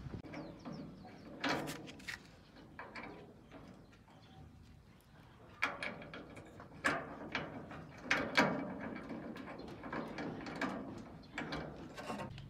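Irregular clicks and knocks of hand work on metal parts, coming at uneven intervals with a few louder strikes.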